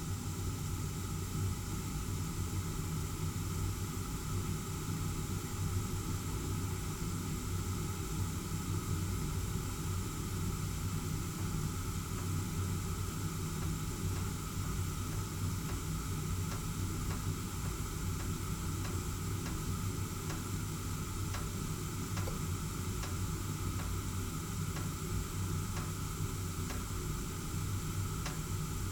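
Gas heating burner's flame burning with a steady rushing hiss and low hum. Faint scattered ticks of the metal expanding as it heats come in from about halfway.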